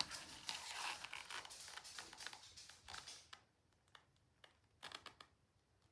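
Stir stick scraping and clicking against a plastic cup while mixing resin, a scratchy stretch of rapid small clicks that stops about three seconds in, followed by a couple of light clicks near the end.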